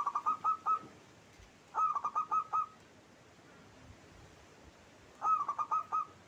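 Zebra dove (perkutut) cooing: three short bursts of five or six quick, rhythmic coos each, the last coming after a longer pause.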